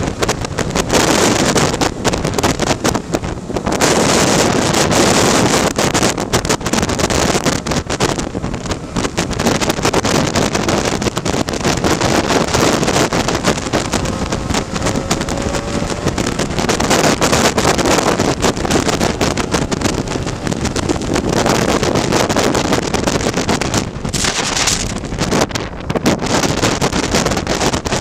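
Wind buffeting the microphone of a camera on a moving Lambretta scooter, loud and gusting throughout, with the scooter's engine running underneath at road speed.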